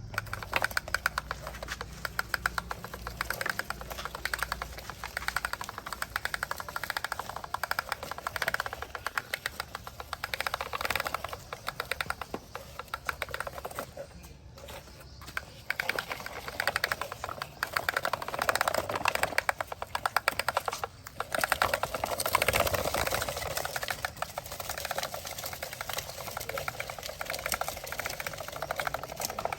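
Small toy-vehicle motors and plastic gearboxes running, with a rapid mechanical clicking that pauses briefly about halfway and again about two-thirds in.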